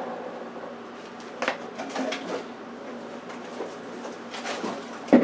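Kitchen handling noises: a few scattered clicks and knocks, the loudest just before the end, over a steady low hum.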